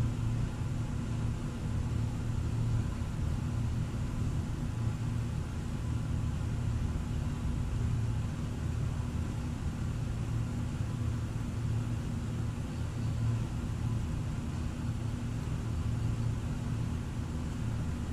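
Steady low mechanical hum, even throughout, with no distinct clicks.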